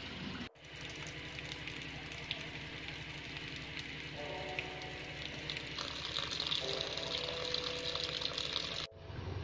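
Tap water pouring into a metal basin of corn cobs, a steady splashing hiss that grows brighter from about six seconds in. The sound cuts out briefly about half a second in and again near the end.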